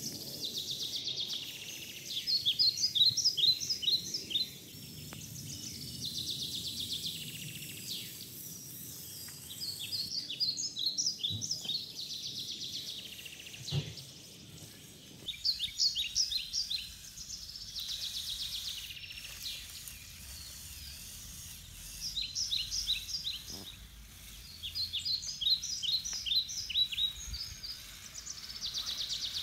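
Songbirds singing: short groups of quick, high chirps and trills recur every few seconds over faint background noise. There is a single soft knock about fourteen seconds in.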